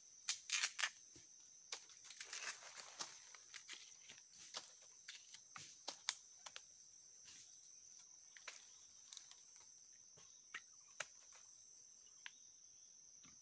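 Husk being stripped off a freshly cut bamboo shoot by hand: scattered crackles, snaps and short tearing rustles, most in the first three seconds, over a steady high insect buzz.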